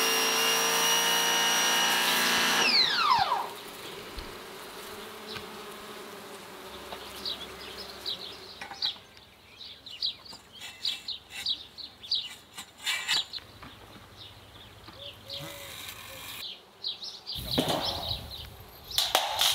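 Pressure washer spraying steadily, then its motor winding down in a falling whine about three seconds in. Birds chirp after that, with a scrape near the end.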